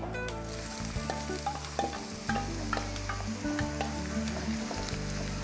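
Sliced onions sizzling as they hit hot oil in a non-stick kadai, stirred with a wooden spatula as they start to fry. The sizzle sets in about half a second in and keeps on steadily.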